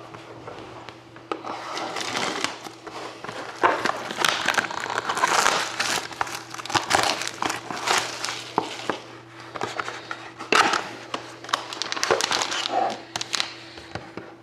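Plastic shrink-wrap being torn off and crumpled by hand in crackly bursts with sharp clicks, as a sealed box of hockey cards is unwrapped and opened.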